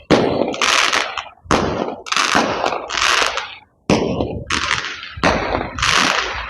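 Fireworks going off in a rapid run of bangs, about two a second, each trailing off in a crackling hiss.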